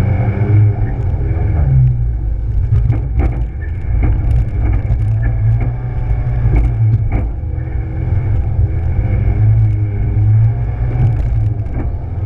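Rally car's engine running under load on an off-road trial section, the revs rising and falling, heard from a camera fixed to the bonnet. Scattered sharp knocks and rattles from the car are heard along the way.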